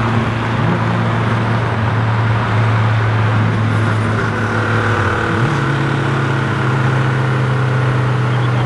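Car engine and road noise heard from inside the cabin while cruising at highway speed, a steady drone whose pitch steps up about five seconds in as the engine picks up revs.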